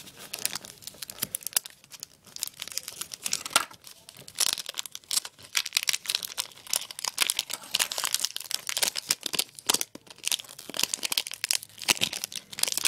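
Foil or wax wrapper of a card pack being torn open and crinkled by hand, a steady run of irregular crackles and rustles, then the cards being handled.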